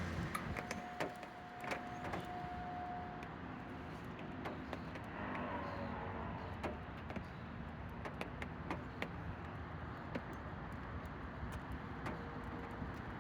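Outdoor street ambience with traffic noise and scattered short clicks and knocks, plus a steady tone lasting about three seconds near the start. No siren wail is heard.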